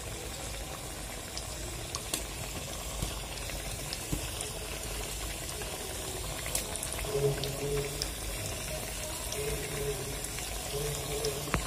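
Patties of mashed potato and leftover roti deep-frying in hot refined oil in an iron kadhai: a steady sizzle with scattered faint crackles.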